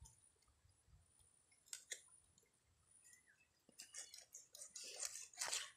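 Knife scraping and cutting fish: a few faint scrapes and clicks, then a run of quick scraping strokes in the last two seconds.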